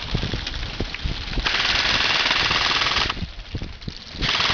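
Airsoft rifle firing two full-auto bursts: a fast, even rattle lasting about a second and a half starting about a second and a half in, and another starting near the end. A few dull knocks come before the first burst.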